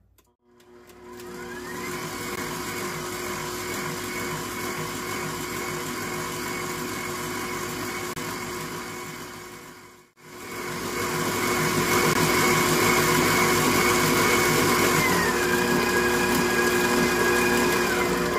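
KitchenAid Professional 6000 HD stand mixer running with its wire whip, churning cream that has just begun to break into butter. The motor whine rises as it comes up to speed, cuts out sharply about halfway, starts again louder, and drops in pitch a few seconds before the end as the speed is turned down.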